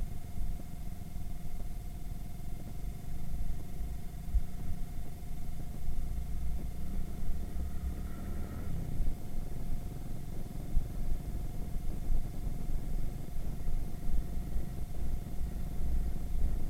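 Irbis Virago 110 cc moped on the move: a low, uneven rumble of engine and wind noise on an action-camera microphone.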